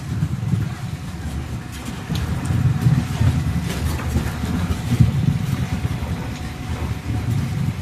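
Gold ore-processing machinery running: a steady low engine-like rumble from a wet pan mill at work, its heavy grinding wheels turning through ore slurry.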